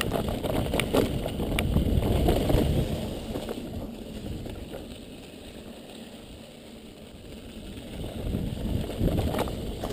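Mountain bike rolling over a dirt trail: tyre noise and rattling of the bike, with a few sharp knocks in the first two seconds. It is loudest in the first three seconds, eases off in the middle, and picks up again near the end.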